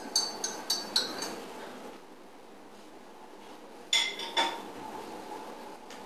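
Crockery and cutlery clinking as tea things are handled on a kitchen counter: a quick run of about five light, ringing clinks in the first second, then two more about four seconds in.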